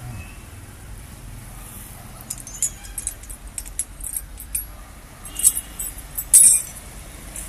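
Metal chain on a captive elephant clinking and rattling in short irregular jingles, loudest twice near the end.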